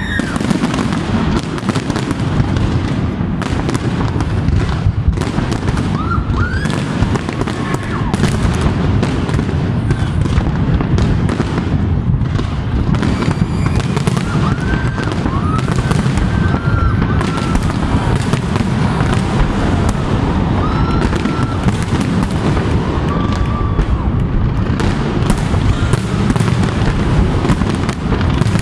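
Large aerial fireworks display: a continuous dense run of shell bursts, bangs and crackling merging into a steady rumble, with short high rising-and-falling tones now and then.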